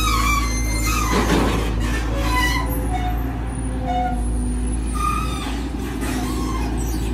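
Volvo EC210DL long-reach excavator's diesel engine running steadily under load as the machine swings and lowers its long boom, with short high-pitched squeals over the engine drone.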